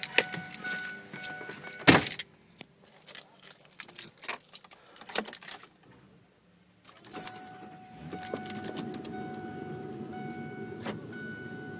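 Keys jangling and handling noise inside a pickup's cab, with a loud thump about two seconds in as the door shuts. A steady electronic warning chime rings in the cab, stopping and then starting again past the middle, with a low steady rumble under it near the end.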